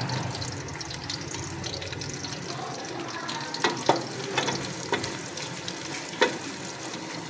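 Sliced onions sizzling in hot oil in an aluminium pressure cooker, being fried to golden. A wooden spatula stirs them and knocks against the pot a few times.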